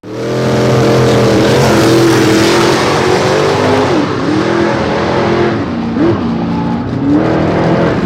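A car engine running at high revs, holding a steady pitch with a few brief dips and wavers.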